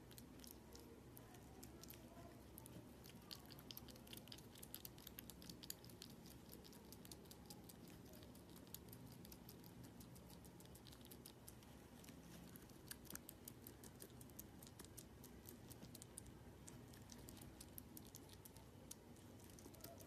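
Hedgehog eating a strawberry: faint, quick, irregular wet smacking and clicking of its chewing, coming in denser runs.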